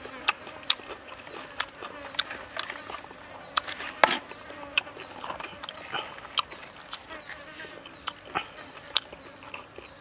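Close-up eating sounds: a string of sharp, irregular clicks and smacks from chewing and from the fork on the wooden board. A faint high insect buzz comes in twice in the background.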